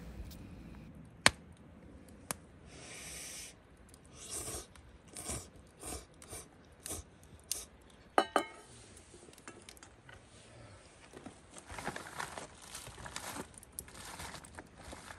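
Someone eating noodles from a stainless steel bowl with chopsticks: a string of short slurps, one sharp clink of a chopstick against the bowl that rings briefly about eight seconds in, and a few light clicks.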